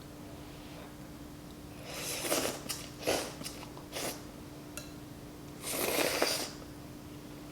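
Close-up slurping of noodle soup: a long slurp about two seconds in, two short ones near three and four seconds, and another long slurp about six seconds in, over a faint steady hum.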